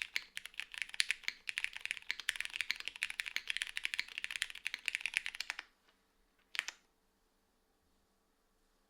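Fast typing on a plateless, gasket-mounted Lily R2 mechanical keyboard with Cherry MX Petal switches and GMK Shoko keycaps: a rapid stream of keystroke clacks that stops a little over halfway through. About a second later comes a single click.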